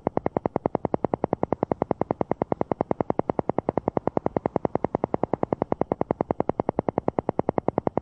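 Alpha-wave brainwave-entrainment track: a synthesized tone pulsing on and off in fast, even beats, several a second.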